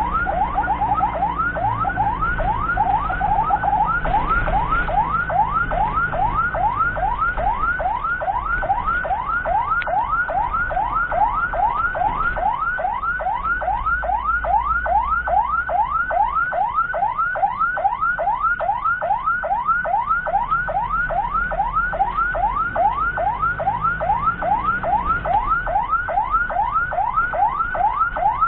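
Ambulance siren on a fast yelp, each note sweeping up in pitch and dropping back about three times a second, switching briefly to a quicker warble about a second and again about three seconds in. A low vehicle engine rumble runs underneath.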